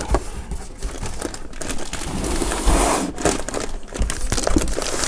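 Cardboard box being opened by hand: flaps pulled back and packaging rustling and crinkling, with scrapes and a few light knocks.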